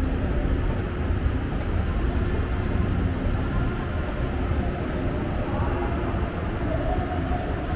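Steady city ambience: a continuous low rumble with faint, indistinct voices mixed in.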